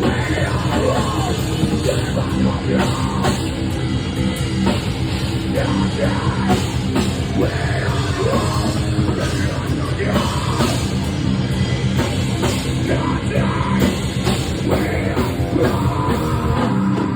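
Live heavy rock band playing loud, distorted guitars and bass over fast, dense drumming, with the vocalist making harsh vocal noises.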